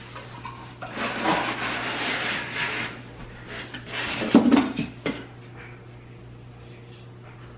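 A small wooden drink caddy being handled and slid out of its packaging: rubbing and scraping for a few seconds, with a couple of sharp wooden knocks about four and five seconds in.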